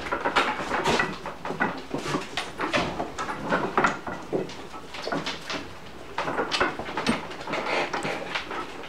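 Irregular rustling, scuffing and light knocking of goats moving about in a pen, with no steady rhythm.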